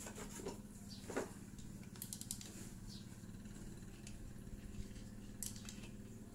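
Faint, scattered clicks and light taps of hand tools as a motorcycle's rear shock is worked on, over a steady low hum.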